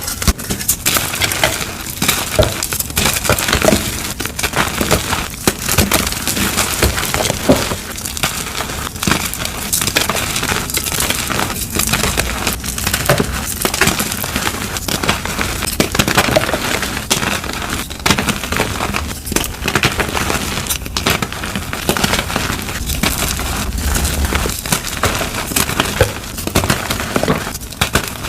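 Blocks of gym chalk being crushed and crumbled by hand: a steady run of dry crunches and crackles.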